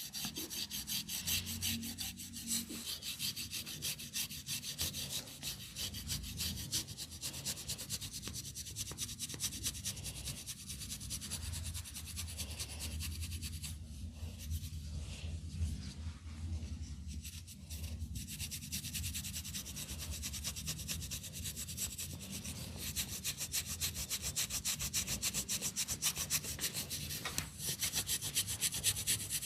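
Hands rubbing briskly over hair and scalp in a head massage, a continuous run of quick, even scratchy strokes, growing louder about three-quarters of the way through.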